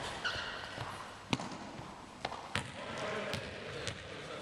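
A ball bouncing on a wooden sports hall floor: about five sharp, irregularly spaced thuds, with faint voices behind them.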